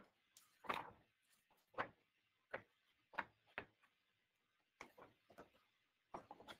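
Near silence broken by about eight soft, irregularly spaced clicks or taps.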